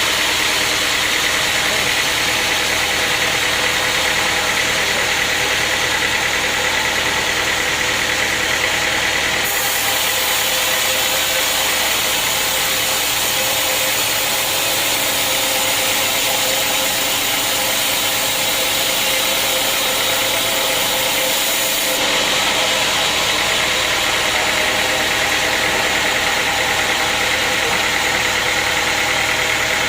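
Heavy sawmill machinery running steadily, a loud constant mechanical hum with hiss above it. The sound changes abruptly about a third of the way through and again about two-thirds through.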